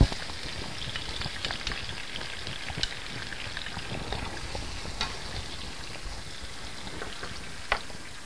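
Minced garlic sizzling and crackling in hot olive oil in a wok while being stirred with a wooden spatula, with a sharp knock right at the start and a few lighter clicks of the spatula against the pan.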